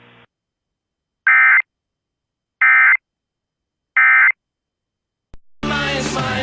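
Emergency Alert System end-of-message signal: three short, loud bursts of SAME digital data tones, each about a third of a second and roughly 1.3 s apart, marking the end of the severe thunderstorm warning broadcast. Music starts near the end.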